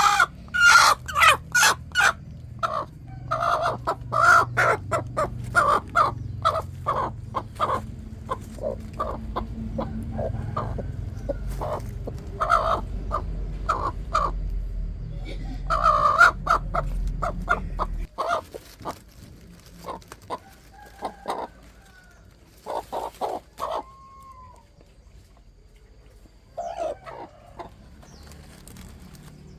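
Chickens clucking: a dense run of short, repeated calls that thins out to scattered calls about two-thirds of the way through. A low rumble underneath cuts off abruptly at that point.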